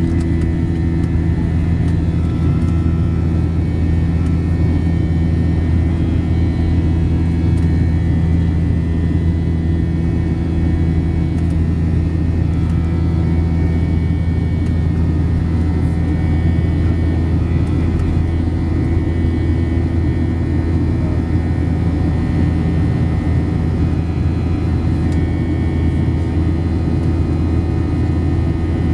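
Boeing 737-700 cabin noise in the climb: a steady, unbroken drone of the CFM56-7B engines and rushing air, heard from inside the cabin, with a strong low hum and a few fainter steady higher tones.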